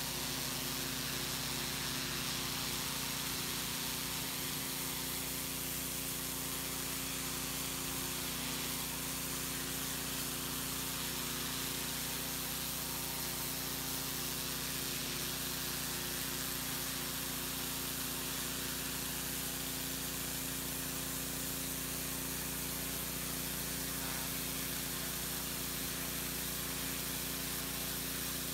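Pressure washer running steadily, its engine humming under the hiss of the high-pressure turbo-nozzle jet spraying against a brick wall.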